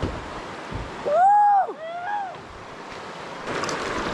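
Rushing water of a river rapid around a kayak, a steady rush that grows louder near the end, with a whooping "woo!" shout about a second in.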